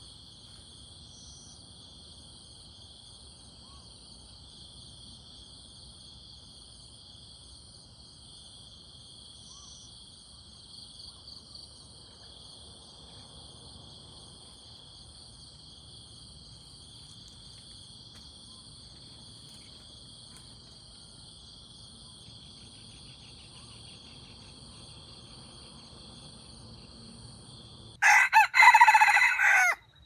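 Steady high-pitched chirring of insects. Near the end a rooster crows once, loud, for about two seconds.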